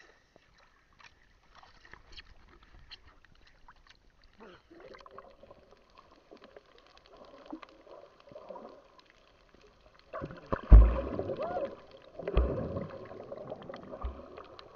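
Muffled underwater sound from a camera in the sea: water movement and bubbling, with a few heavy low thumps from about ten seconds in.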